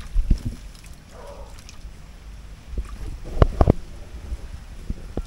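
Shallow muddy water stirred as a man wades and handles a bamboo shrimp trap, over a low rumble of wind on the microphone. A couple of dull thumps come near the start, and a quick run of three sharp knocks about three and a half seconds in.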